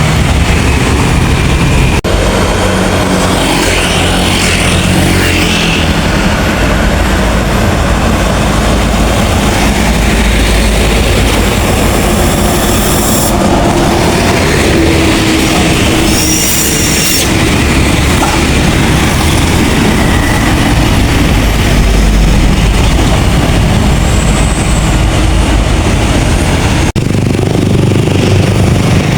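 Large diesel buses driving past on a road: a loud, steady engine rumble mixed with road noise. The sound changes abruptly twice.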